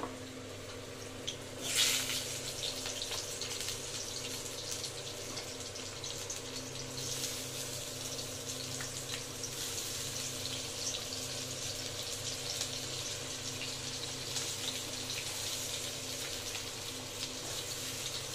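Potato wedges dropped into smoking-hot oil in a kadai: a sudden loud burst of sizzling about two seconds in, then steady sizzling and crackling as they fry.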